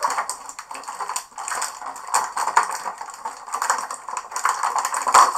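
Clear plastic packaging bag crinkling and crackling as an action figure is pulled out of it, a busy run of small crackles with a sharper one near the end.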